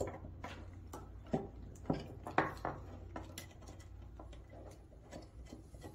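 Antenna cables rustling in the hands, with scattered small clicks and knocks as a threaded SMA antenna connector is fitted and screwed onto the router.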